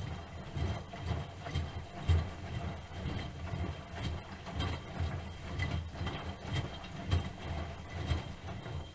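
Miele Softtronic W3923 front-loading washing machine's drum turning mid-cycle, with the laundry thudding and sloshing about twice a second. It stops near the end, the pause before the drum reverses.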